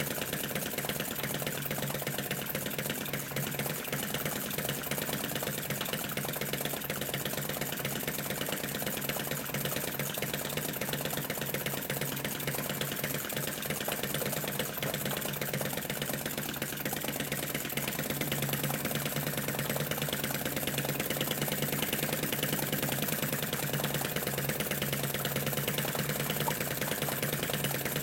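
Model flame-eater (flame-licker) engine, built as a Lanz Bulldog tractor, running at a steady speed with a fast, even ticking clatter while belt-driving a model oil-field pump. It grows a little louder after the middle.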